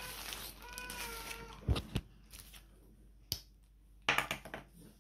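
Plastic carrier bag crinkling and rustling as it is handled, in several short bursts, the loudest about four seconds in. A short high-pitched vocal sound comes about a second in.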